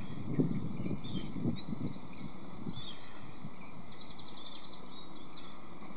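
Small songbirds chirping and singing, with a quick rattling trill about two-thirds of the way through. A few low rumbles sound in the first second or so.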